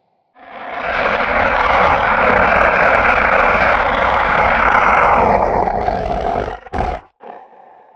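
Designed griffin creature sound effect: one long, harsh, noisy cry lasting about six seconds and thinning out near its end, followed by two short breathy bursts.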